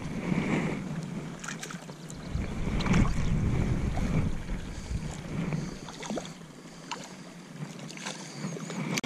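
A hooked trout splashing and thrashing at the water's surface as it is brought to a landing net, in several short splashes, with wind rumbling on the microphone.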